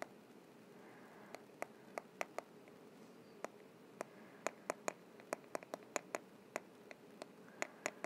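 Stylus tip tapping and clicking against an iPad's glass screen while handwriting, irregular sharp clicks a few times a second over a faint steady hum.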